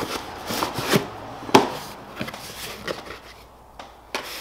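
Cardboard shipping box being unpacked by hand: flaps rustling and folding back and packaging set down on a tabletop, with a couple of sharp knocks about a second in.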